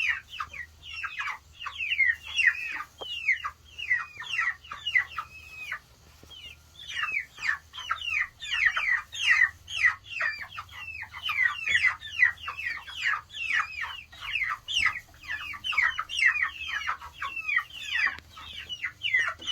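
A flock of young chickens peeping loudly and over and over, many short falling chirps overlapping, with a brief lull about six seconds in. These are distress peeps, the crybaby calls of chicks left alone in their new coop.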